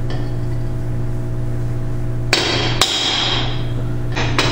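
Steel hammer striking a homemade driver made from an old bearing race, driving a pinion bearing race home into a GM 8.5-inch 10-bolt differential housing. Two ringing metal strikes come about two seconds in, then a quick run of strikes near the end, all over a steady low hum.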